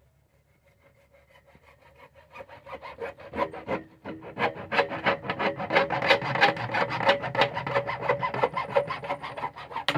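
Hand saw cutting PVC pipe in quick, even strokes, several a second, with a faint ringing tone under them. It starts faint, grows loud from about four seconds in and stops suddenly.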